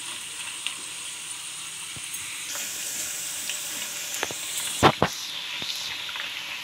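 Raw banana slices sizzling as they deep-fry in hot olive oil, a steady high hiss, while a spoon stirs them. About five seconds in the spoon knocks twice sharply against the pan.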